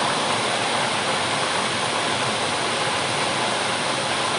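Water pouring from spouts into a pool: a steady rushing splash with no change in level.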